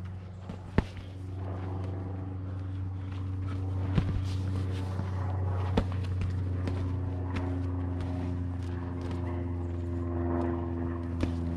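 Boxing gloves smacking on hits during sparring, four sharp smacks spread through the stretch, with feet shuffling on a dirt floor. Under it runs a steady low engine-like hum.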